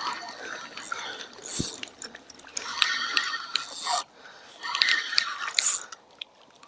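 Fishing reel cranked in three spurts of about a second each, its gears whirring and clicking, as a hooked fish is reeled in.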